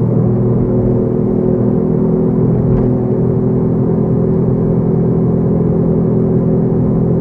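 Steady engine hum and road rumble inside the cabin of a 2006 Toyota Ractis at an even, constant speed or idle.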